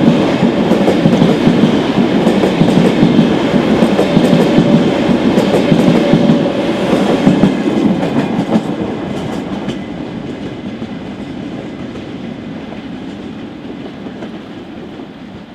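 A train passing close by, its wheels clattering and clicking over the rail joints, then fading away from about eight seconds in as it recedes.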